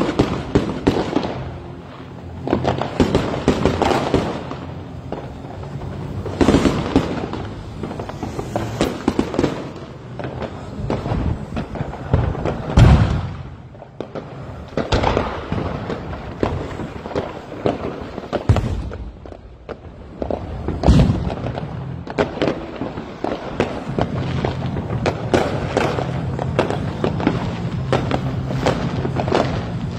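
Fireworks and firecrackers going off all around: a dense run of crackling and popping reports with scattered louder bangs, the heaviest about thirteen seconds in and again about twenty-one seconds in.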